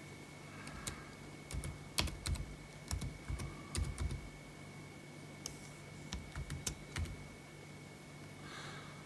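Keys pressed on a MacBook Air's built-in keyboard as a password is typed: a quick run of key clicks, a short pause, then a few more presses. A faint steady hum runs underneath.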